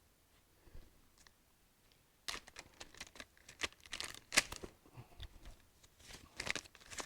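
Packaging rustling and crinkling as it is handled by hand, after a nearly quiet start of about two seconds.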